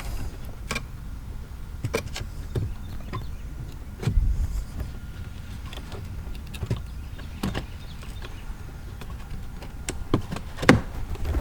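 Scattered clicks and knocks of an interior trim piece being worked and pushed into its slot in a car's dash, as it is fought into line. A heavier thump comes about four seconds in and a sharp knock near the end.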